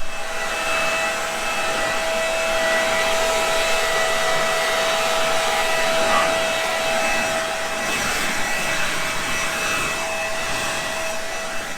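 Vermeer SC362 stump grinder running steadily: a steady whine over a loud rushing hiss, cut in and out abruptly.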